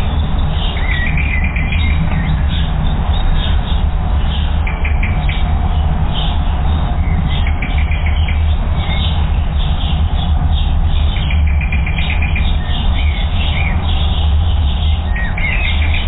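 Small songbirds chirping in short, quick runs of notes several times, over a steady low rumble.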